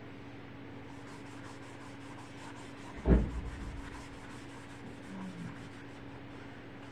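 Flat brush rubbing poster paint across paper in repeated short strokes, over a low steady hum. A single dull thump about three seconds in.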